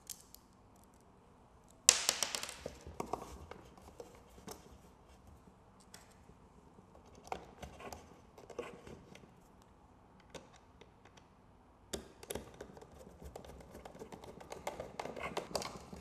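Small clicks, taps and scrapes of a small screwdriver and a mini camera bracket being worked against a wooden bird feeder, with one sharp, louder scrape about two seconds in and busier clicking near the end.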